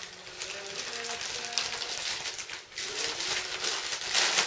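Wrapping paper rustling and crinkling as a present is unwrapped by hand, with a loud burst of tearing or rustling near the end. Faint voices murmur in the background.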